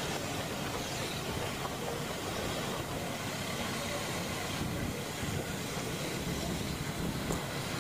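Steady rush of wind and road noise from riding along a street, with small motorcycles running close by.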